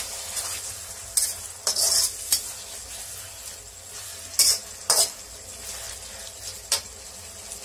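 Slotted metal spatula stirring and scraping an onion, tomato and chilli masala around an iron kadai, over a steady sizzle of frying. There are a few sharp scrapes of metal on the pan, the loudest a little past the middle.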